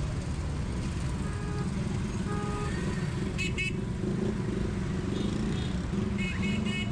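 Busy street traffic: vehicle engines running steadily, with short pulsed horn beeps about three and a half seconds in and again near the end.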